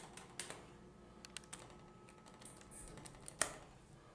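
Faint elevator hum with scattered light clicks and one sharper knock near the end, from the elevator car and its door mechanism.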